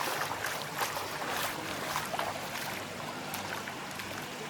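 Steady rush of water from a waterfall and its stream, with scattered light clicks and taps over it, more of them in the first half.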